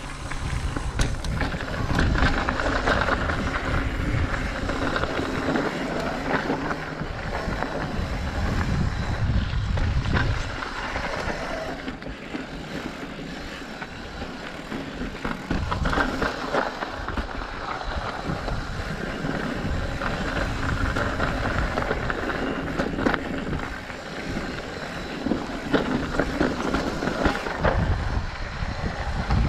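Mountain bike rolling down a dirt trail, recorded on a GoPro: wind buffeting the microphone, tyres on dirt and rock, and the bike rattling and clicking over bumps.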